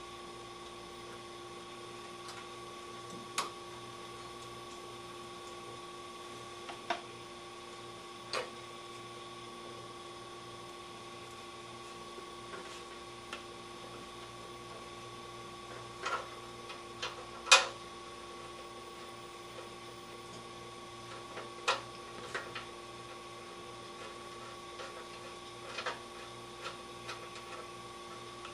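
Scattered small metal clicks and clinks from hands fitting the choke-cable clamp bracket and bolt on a small engine, the sharpest about two-thirds of the way through, over a steady electrical hum.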